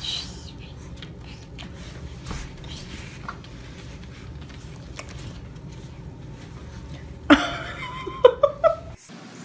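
A quiet room with a low hum and a few faint taps. About seven seconds in, there are several short, high-pitched voice sounds.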